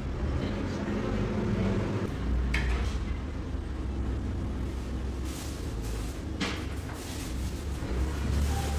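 Clothes hangers being handled, with two sharp clicks and some rustling of garments, over a steady low rumble.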